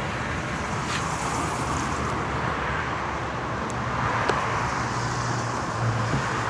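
Steady vehicle engine and road-traffic rumble, with a couple of faint clicks.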